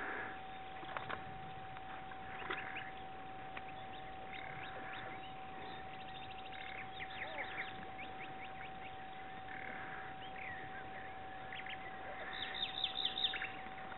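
Birds singing: scattered chirps, with quick runs of rapid notes about seven seconds in and again near the end, over a faint steady tone.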